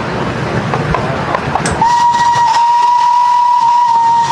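Miniature steam locomotive on the move, then its steam whistle blowing one long, steady blast about two seconds in that cuts off sharply near the end.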